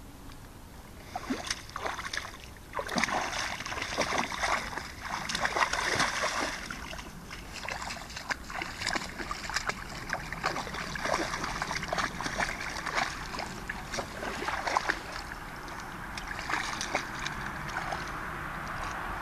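Two Rhodesian ridgebacks splashing as they wade through shallow pond water and root at something under the surface: a run of irregular sharp splashes starts about a second in and eases into steadier sloshing near the end.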